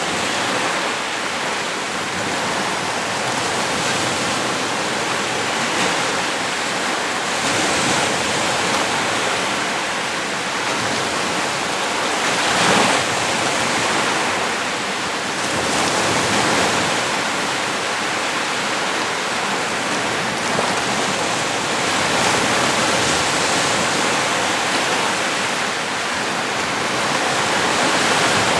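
Small lake waves washing onto a beach in a steady wash of surf, with a swell breaking a little louder every few seconds.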